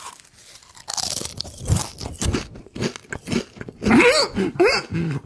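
Potato chips bitten and chewed right at the microphone, with a string of sharp, crisp crunches. Near the end comes a loud, wavering hum from the closed mouth while chewing.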